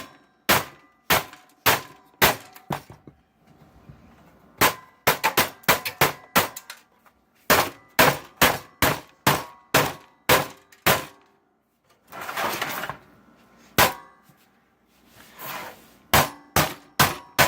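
Hammer striking a metal part inside a computer, in quick runs of blows about two a second, each with a short metallic ring, to knock a stuck piece loose. Two short noisy stretches without blows come about two-thirds of the way through.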